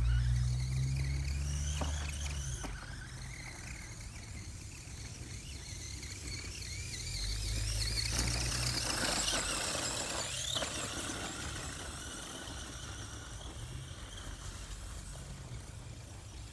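Electric motor and gears of a Redcat Volcano EPX radio-controlled monster truck whining, rising and falling in pitch as it speeds up and slows, climbing highest about two-thirds of the way through. Low rumbling comes near the start and again about halfway through.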